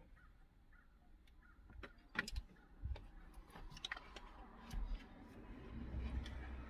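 Handling noise as the horn wiring connector is plugged into the back of a pickup's steering-wheel airbag module: scattered light clicks and plastic knocks, with a dull low rumble near the end.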